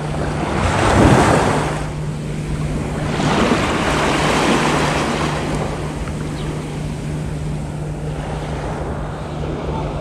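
Small sea waves washing in at the shoreline, swelling about a second in and again from about three to five seconds, over a steady low hum.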